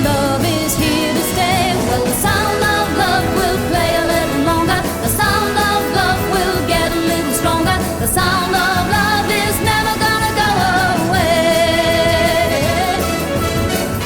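Pop song playing, with a woman singing over the instrumental backing.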